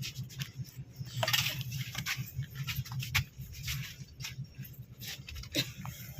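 Cabin sound of a Volvo air-conditioned bus: a steady low hum with many small clicks, knocks and rattles, and two brief squeaks, about a second in and near the end.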